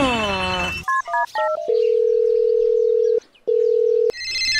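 Phone sound effects: a falling cartoon-style glide, then four quick keypad dialing beeps and a long steady calling tone broken once by a short gap. About four seconds in, a high electronic ringtone cuts in.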